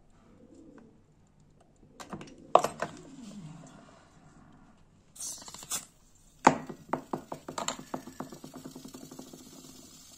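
Small metal clicks and taps on a brass gas lighter's refill valve, a short hiss about five seconds in, then a quick run of clicks that come faster and fade away.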